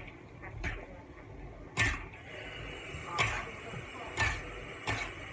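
A metal spatula stirring green beans in a metal wok, knocking and scraping against the pan about five times, roughly once a second.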